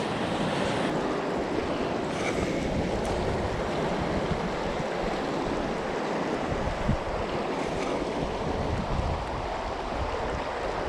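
Steady rushing of a fast-flowing mountain stream, water running over rocks.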